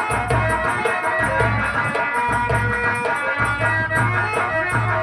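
Instrumental stage music with a steady beat: low drum pulses about twice a second, a fast rattling shaker and a sustained melody line over them.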